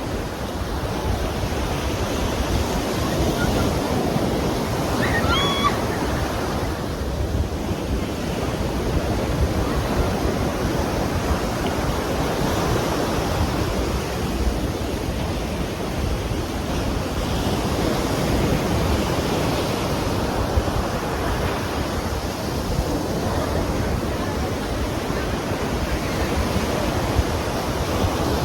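Ocean surf breaking and washing in a steady roar that swells and eases, with wind rumbling on the microphone. A short high-pitched cry is heard about five seconds in.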